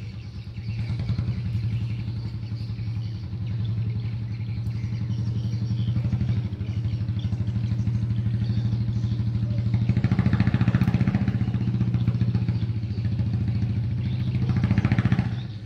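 A small engine running steadily with a fast, even firing beat and a low hum, growing louder about ten seconds in and again near the end.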